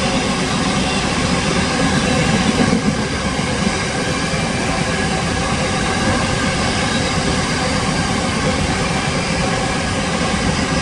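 Container wagons of a long freight train rolling past on the track: a steady, loud rumble of wheels on rails, swelling slightly a couple of seconds in.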